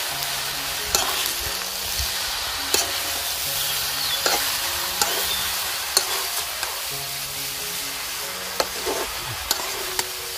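Food sizzling and frying in a pan while it is stirred, with sharp knocks of the spoon or spatula against the pan every second or so. Soft background music underneath.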